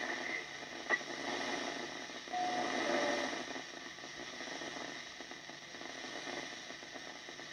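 Hiss and static from the receiver of a Yaesu FT-102 HF transceiver tuned to 29.620 MHz FM on the 10 m band, with a faint steady high tone, a click about a second in and a brief low beep between two and three seconds in.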